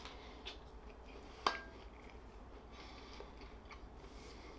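Quiet crunchy biting and chewing of a pizza slice with a crisp crust, faint crackles scattered through. One sharp clink with a short ring about one and a half seconds in.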